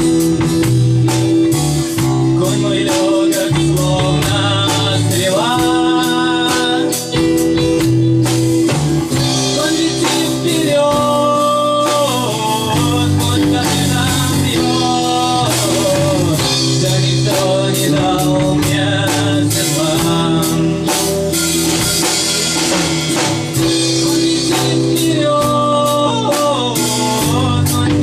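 Rock band playing a song: a singer holds long vocal lines over changing low bass notes, guitar and a drum kit keeping a steady beat.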